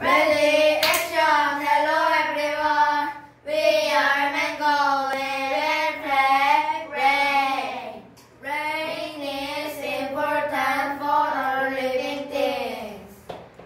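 A group of children singing together in unison, in three phrases with short breaks about three and eight seconds in. One sharp click about a second in.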